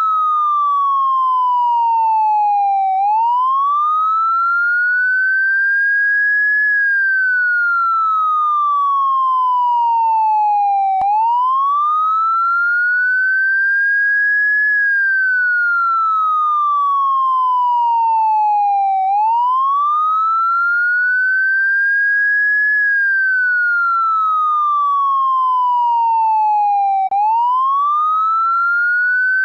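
Electronic police siren in a slow wail: a clean tone climbs from low to high over about four seconds, then slides steadily back down over about four more, repeating every eight seconds. A faint click marks the restart of the sweep about eleven seconds in and again near the end.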